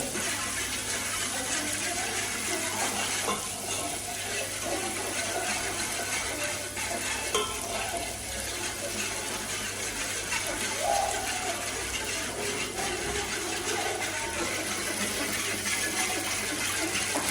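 Steady hiss of kitchen activity with faint voices in the background and occasional small clinks.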